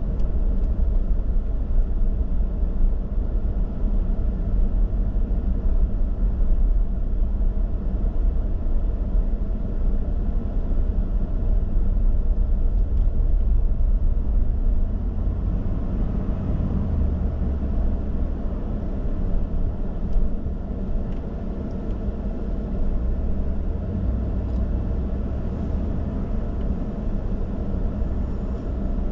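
Car being driven: steady low rumble of engine and tyre noise.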